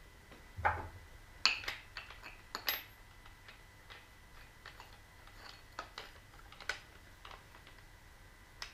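Scattered metal clicks and light knocks as a grinding disc is fitted onto an angle grinder that is not running.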